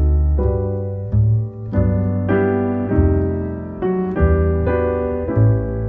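Background piano music: slow chords, a new one struck about every half second and left to ring and fade.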